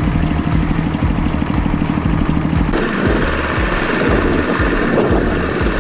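Combine harvester's diesel engine running steadily; about three seconds in, the sound switches to the single-cylinder diesel engine of a two-wheel walking tractor chugging at about four beats a second.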